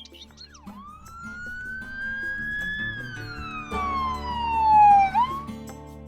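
A single siren wail that rises slowly, falls, then rises briefly again near the end, over background music.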